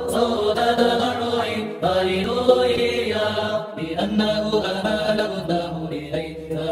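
Chanted vocal music: sustained sung voices over a low drone, the drone dropping out briefly about two seconds in and again near four seconds.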